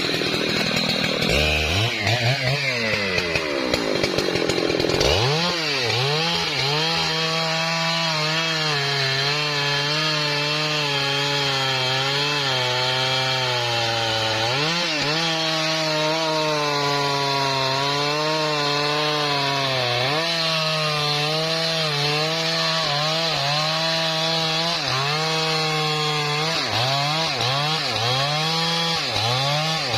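Husqvarna 3120 XP chainsaw, a large two-stroke, cutting through a trembesi log. It revs up and down for the first few seconds, then runs under load with the pitch dipping and recovering as the chain bites. Near the end the note wavers up and down quickly.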